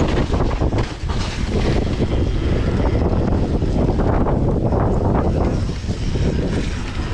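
Mountain bike riding fast down a dirt forest trail: continuous tyre rumble with frequent rattles and knocks over roots and bumps, under heavy wind buffeting on the chest-mounted camera's microphone.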